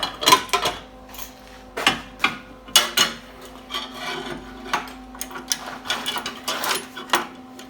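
Irregular metal clanks, knocks and scrapes of steel pieces and clamps being handled and fitted onto a truck frame, over a steady low hum.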